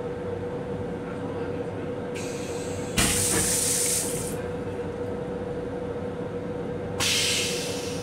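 Stainless steel rail-car toilet flushing: a sudden loud rush of water about three seconds in, lasting just over a second, then a second, shorter hiss near the end. Underneath is the steady running noise of the train with a constant hum.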